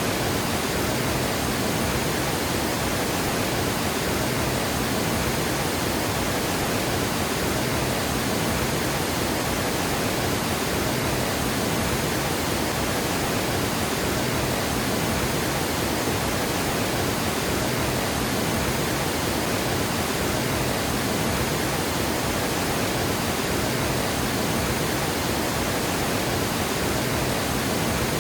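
Water gushing over a dam, a steady, even rush of falling water that holds constant throughout.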